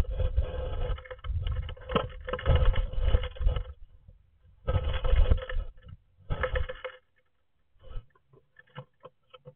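A cat's paw scrabbling in through a nest box entrance hole, heard from inside the wooden box: loud scraping and knocking with heavy thuds in three spells, the last ending about seven seconds in. Only faint scattered ticks follow.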